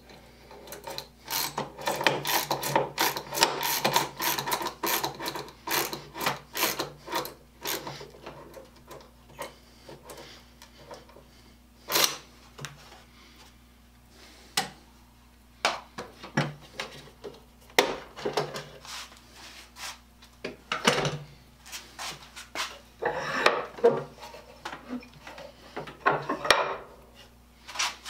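Hand push drill pumped into a wooden board: a quick run of rasping strokes for several seconds. Then scattered clicks, knocks and short scrapes of tools handled on the wooden workbench.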